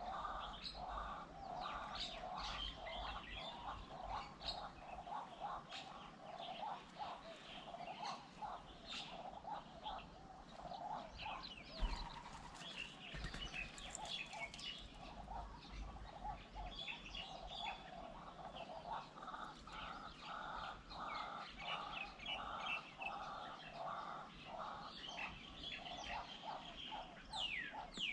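Wild birds calling and chirping, with one bird giving a repeated call of about two notes a second that pauses midway and resumes. Higher chirps run over it, a single knock sounds about twelve seconds in, and a quick falling whistle comes near the end.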